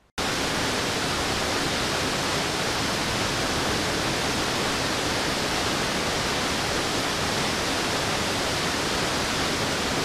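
Waterfall water rushing onto rocks and into a pool, a steady, even noise with no pauses or changes, cutting in and out abruptly.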